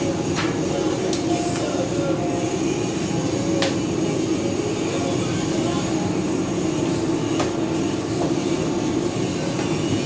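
Steady machinery drone aboard a ship, with a few sharp clicks and scrapes as a cardboard carton is cut and its flaps pulled open.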